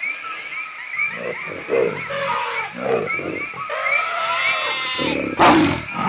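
Wild-animal jungle sounds: a high chirping call repeating about three times a second, joined about a second in by a series of low grunting calls. Near the end comes a loud noisy rush.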